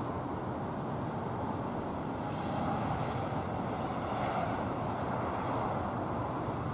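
Jet engines of a Boeing 737-800 at takeoff power on the takeoff roll: a steady rush of jet noise, a little louder from about two seconds in, with a faint whine that dips slightly in pitch in the middle.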